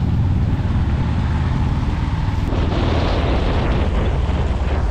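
Vehicle in motion: a steady low engine and road rumble with wind buffeting the microphone. The noise grows brighter and hissier about two and a half seconds in.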